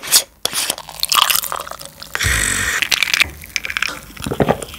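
Screw cap of a small aluminium drink bottle cracking open with a sharp click, then the drink poured into a small glass about two seconds in, followed by gulps as it is drunk.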